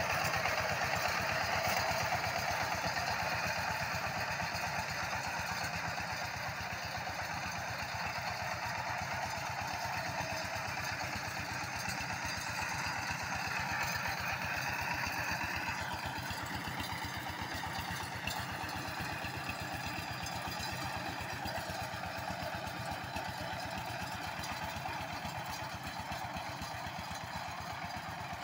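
A 14 hp diesel power tiller's single-cylinder engine runs steadily under load with a rapid, even chugging beat. It gets slightly quieter as the machine moves away.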